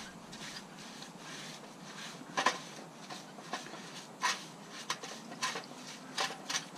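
A paintbrush scrubbing a steel bicycle cassette in a tray of petrol, the bristles swishing, with several short sharp metal clinks scattered through.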